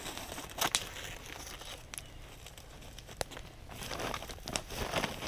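Rustling and crinkling handling noise, broken by a handful of sharp clicks, busiest near the end.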